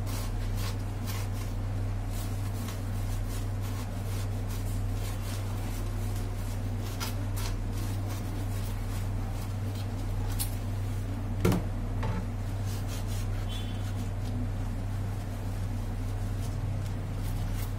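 Dishes being washed by hand in a stainless steel sink: a soapy sponge scrubbing plastic and glass containers, with scattered light clicks and clinks and one louder knock about two-thirds of the way through, over a steady low hum.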